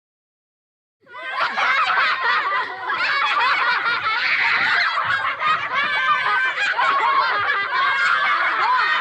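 A group of children laughing together, many voices giggling and cackling over one another, starting suddenly about a second in after a moment of silence.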